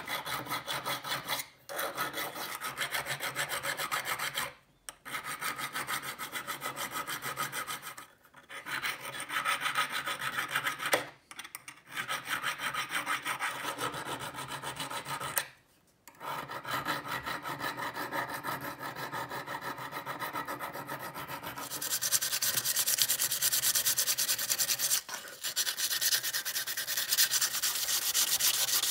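Hand file rasping across the jaw edge of an old steel open-ended wrench in rapid back-and-forth strokes, stopping briefly every few seconds. About 22 seconds in, it gives way to abrasive paper rubbing along the wrench, a brighter, more even scratching.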